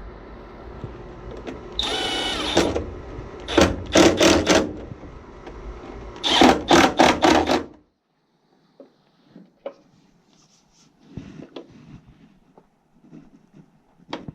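Power drill running in short bursts, its motor whine changing pitch, with a steady background hum. Just before halfway everything stops abruptly, leaving only faint clicks and handling of parts.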